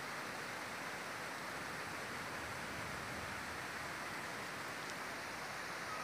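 Small glacier-fed waterfall pouring over a stone wall into a pool: a steady, even rush of water.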